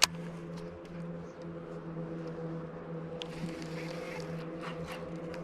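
A boat motor running at a steady drone, with one sharp click right at the start and a few faint clicks later.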